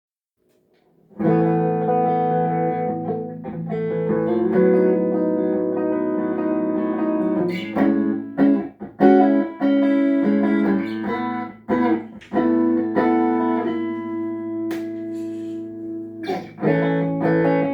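Tagima TW61 electric guitar being played as a sound test after servicing: ringing chords and notes start about a second in and go on with a few brief breaks between phrases.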